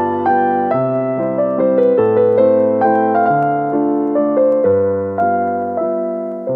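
Background piano music: a slow melody over lower held notes.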